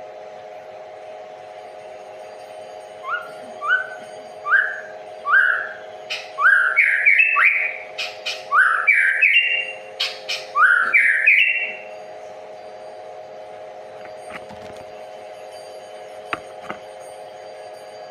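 A songbird whistling a series of short rising notes that come faster and louder for about nine seconds, then stops. Under it runs a steady hum.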